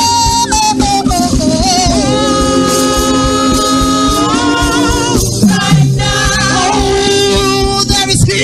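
Gospel choir singing long held notes over a band with a steady beat.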